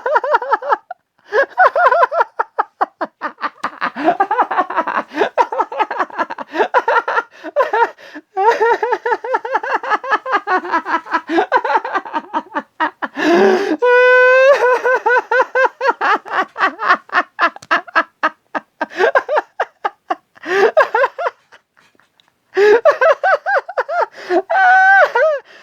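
A person laughing in a long, hard fit: rapid bursts of laughter several times a second with short pauses for breath. The laughter rises into a high squeal about halfway through and again near the end.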